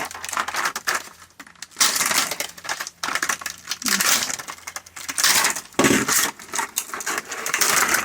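Metal hand tools clinking and clattering as they are handled and packed, a run of irregular knocks and rattles.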